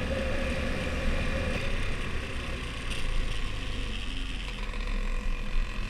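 Husqvarna Svartpilen 401's single-cylinder engine running at low speed with a steady rumble, heard from the rider's position while riding.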